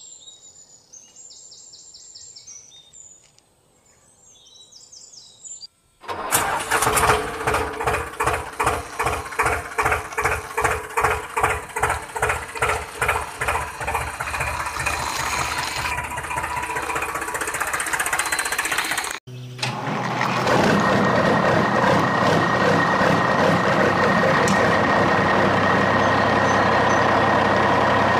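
Engine sound: faint high chirps for the first few seconds, then from about six seconds in a slow rhythmic chugging of about two beats a second, and after a brief cut a steady engine running with a constant hum.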